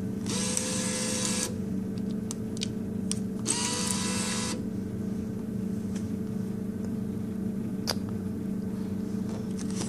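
Vending machine bill acceptor's motor whirring twice, about a second each: first drawing in a taped dollar bill, then about three seconds later running again to push the bill back out, rejected. A steady hum underneath and a single click near the end.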